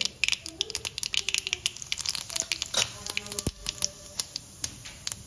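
Mustard seeds crackling and popping in hot oil in an iron kadhai: a rapid, irregular run of sharp pops. This is the tempering (phodni) stage, where the seeds are left to splutter well in the oil.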